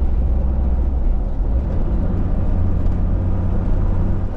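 Toyota LandCruiser Troop Carrier driving along at a steady speed: a constant low engine and road rumble heard from inside the cabin.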